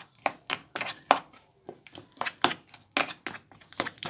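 Quick, sharp knocks of a kitchen utensil in food prep, about four a second and uneven.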